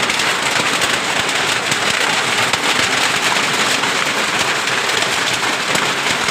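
Heavy rain falling in a dense, steady patter.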